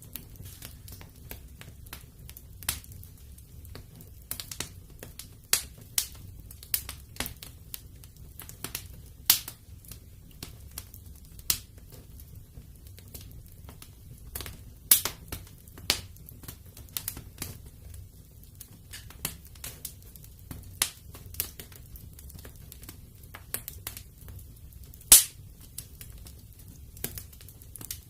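Fire in a fireplace crackling: irregular sharp pops and snaps, a few much louder than the rest, over a steady low rumble of the flames. The loudest pop comes near the end.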